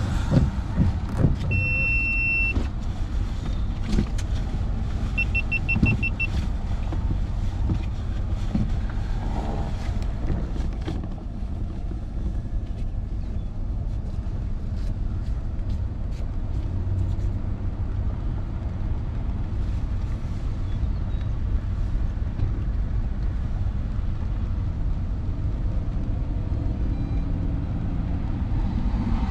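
Steady low rumble of a vehicle, with a few knocks and clicks in the first seconds. One long high electronic beep comes about two seconds in, and a quick run of about six short beeps near six seconds.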